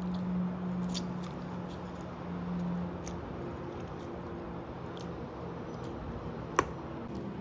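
Metal fork clinking lightly against a ceramic pasta bowl as pasta is lifted and twirled, with soft squishy eating sounds. There is one sharper clink near the end.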